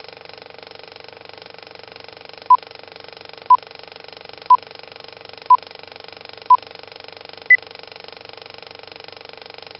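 Film-leader countdown effect: a steady, fast rattle of an old film projector, with five short beeps a second apart and then a sixth, higher-pitched beep a second later.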